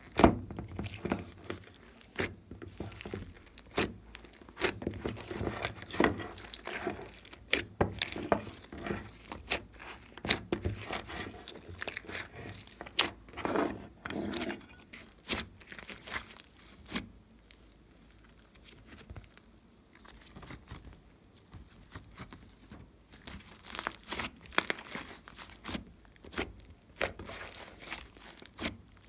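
Hands squishing and kneading glossy slime mixed with soft clay, making irregular sticky pops and clicks. It goes quieter for a few seconds a little past the middle, then the pops come thick again.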